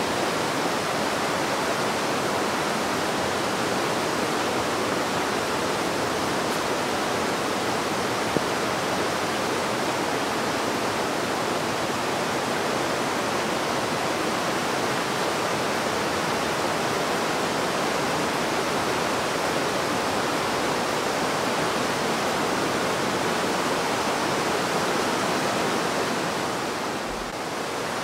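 The Breitach river rushing over boulders in white-water rapids: a steady, unbroken roar of water, dipping briefly near the end.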